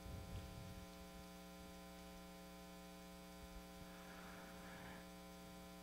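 Near silence apart from a steady electrical mains hum with many overtones, with a faint low rustle in the first second.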